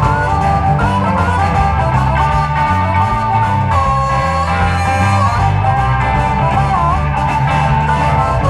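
Live blues band playing: a harmonica takes a solo with held and bent notes over electric guitars, bass guitar and a steady drum beat.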